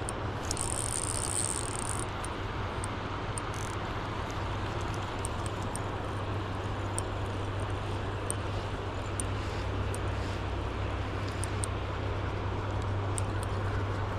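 Steady rushing of river water, an even noise heaviest in the low end, with a few faint ticks.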